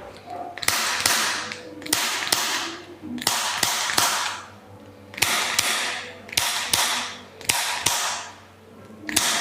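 Sharp clicks, each followed by a brief rasping rustle, repeating in quick groups of two or three about a dozen times: the working sounds of a chiropractic adjustment on a treatment table.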